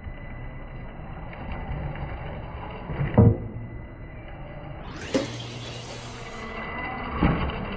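A 1/10-scale RC rock crawler's electric motor and drivetrain running at low speed as it climbs over concrete roof tiles, with a thump about three seconds in and another a couple of seconds later as the tyres come down over the tile ridges.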